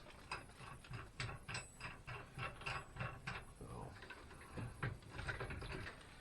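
Scattered light clicks and taps at irregular intervals from parts of a sliding miter saw being handled.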